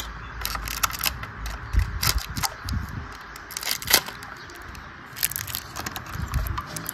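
Small clear plastic bag crinkling and crackling as fingers handle it, in many sharp little crackles with a few louder clicks.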